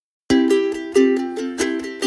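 Background music of quick plucked-string notes that starts about a third of a second in, after a brief silence.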